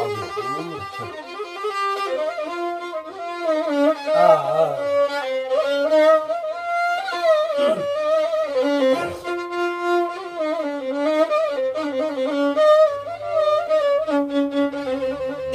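Solo violin playing a slow, ornamented melody, with slides between notes and vibrato.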